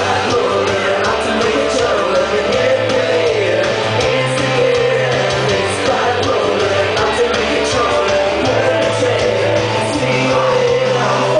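Amplified music through a venue PA during a band's sound check: a backing track with a held bass line that changes note every second or two, and a singing voice over it.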